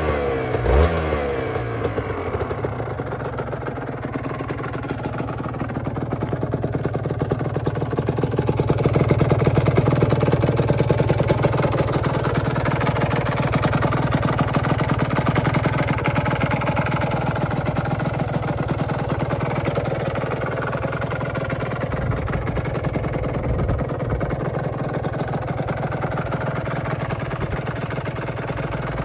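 Aprilia RS125's 125 cc two-stroke single-cylinder engine idling steadily, its revs falling back from a throttle blip in the first second.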